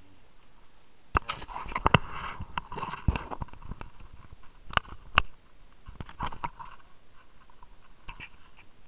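A dog sniffing and snuffling close to the microphone in a run of short noisy bursts, with sharp clicks and knocks among them, busiest in the first half and thinning out after about seven seconds.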